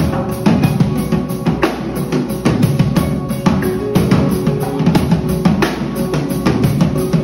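Acoustic drum kit played live to a song: bass drum, snare and cymbal strikes in a busy groove over held chords.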